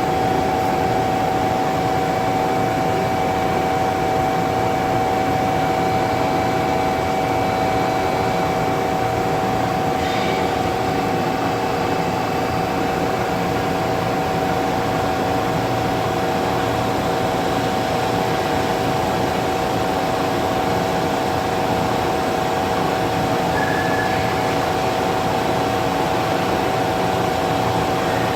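Metal lathe running, giving a steady whine of several constant tones over an even mechanical hum that does not change in level.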